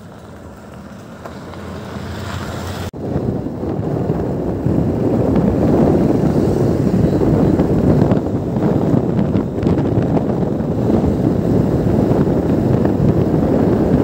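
Wind buffeting the microphone of a riding motor scooter, over the scooter's engine and road noise. Quieter at first, it changes abruptly about three seconds in and stays loud and steady.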